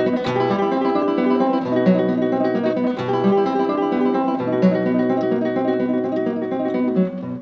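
Background music: a plucked guitar plays a quick run of notes over a low held bass note.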